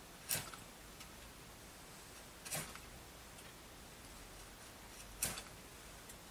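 Three short, faint wooden strokes about two and a half seconds apart, from hand work on a thin wooden instrument board.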